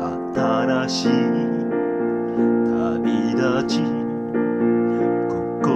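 Music: piano chords with a voice singing the melody over them, held notes wavering with vibrato.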